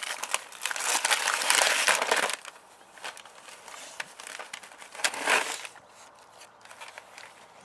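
A pit bull tearing open a gift-wrapped present, the wrapping and tissue paper crinkling and ripping loudly for the first couple of seconds, then rustling more quietly, with another short burst of tearing about five seconds in.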